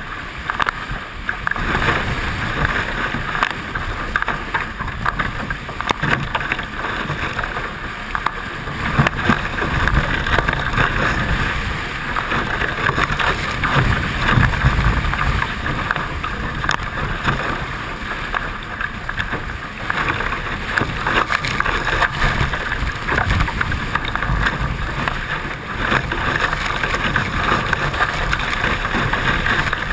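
Steady rush of water and wind on a Hobie 16 catamaran under sail, with wind buffeting the microphone in uneven low gusts.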